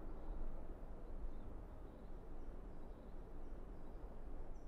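Open-air ambience: a steady low rumble of outdoor noise with a few faint bird chirps, one clearer chirp near the end.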